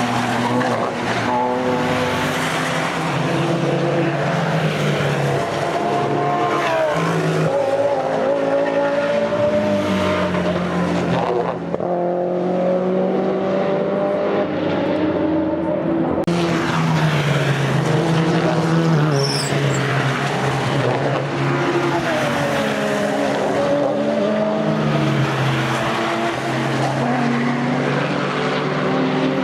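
Race cars with open exhausts running at full throttle past the track, their engine notes overlapping. The pitch rises and falls through gear changes and as each car goes by.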